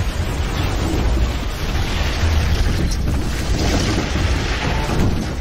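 A brick building collapsing: falling masonry and debris in a continuous deep rumble.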